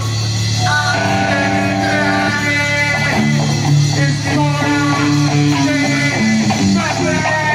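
Black metal band playing live: electric guitars and bass play a riff of held notes that change every half second or so, over drums.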